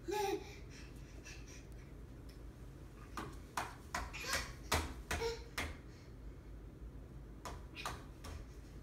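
A baby slaps at a plastic vacuum cleaner hose with its hand, making a run of light, sharp taps from about three to six seconds in and a few more near the end. A brief baby coo comes right at the start.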